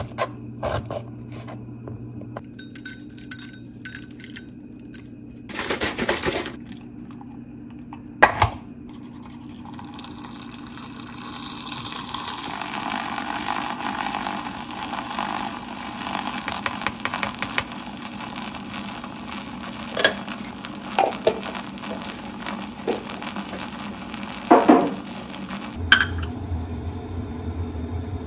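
Kitchen preparation sounds: a knife clicking on a cutting board while strawberries are sliced, then a steady whir from an electric milk frother spinning milk, with spoon and glass clinks scattered through. A low hum starts near the end.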